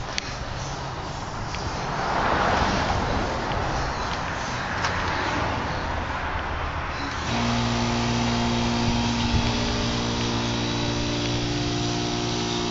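Steady machine noise, swelling briefly about two seconds in; about seven seconds in a motor's steady hum of several held tones cuts in suddenly and runs on.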